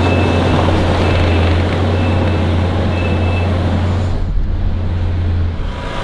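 Kubota compact track loader's diesel engine running with a steady low drone, and a reversing alarm beeping about once a second for the first few seconds. The sound changes about four seconds in, and the low drone drops out near the end.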